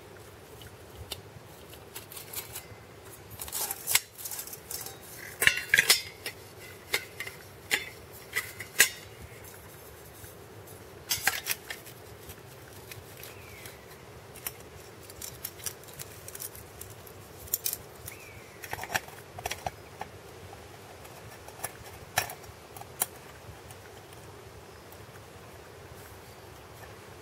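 Small metal pieces clinking and clattering in irregular knocks, some with a brief ring, busiest and loudest between about four and twelve seconds in.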